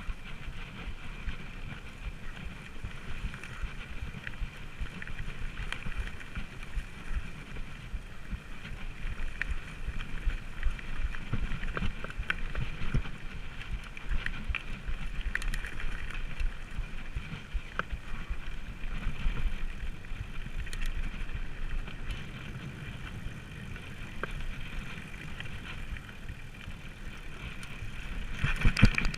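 Full-suspension Specialized FSR mountain bike ridden along a dirt forest trail: a steady rumble of ride noise with scattered rattles and clicks from the bike, and a sharper clatter near the end.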